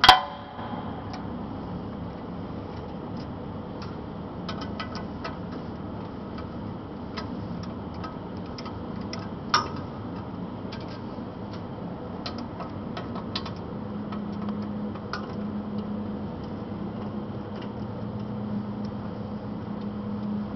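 Workshop handling of steel machine parts and tools while a die insert is changed on a corrugated-elbow bending machine: a sharp metal clank with ringing at the start, another clank about ten seconds in, and scattered light metallic clicks. Under these runs a steady hum, joined by a low steady drone about two-thirds of the way through.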